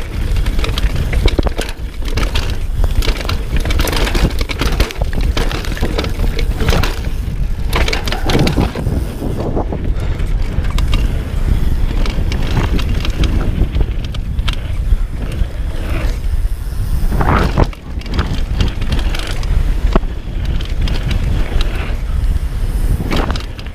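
Knolly Delirium downhill mountain bike ridden fast over a dusty dirt trail: a constant rush of wind on the microphone over tyre roar, with the bike's chain and frame clattering sharply over bumps and landings.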